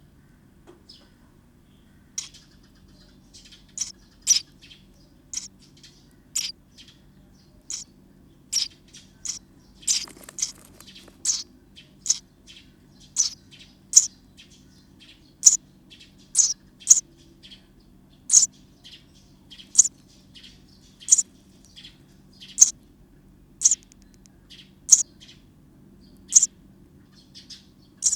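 Sparrow nestlings chirping inside a nest box: short, high chirps repeated about one to two a second, starting about two seconds in.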